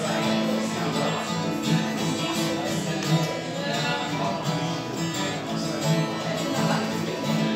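Acoustic guitar played solo, strummed in a steady rhythm: an instrumental passage of a song with no singing.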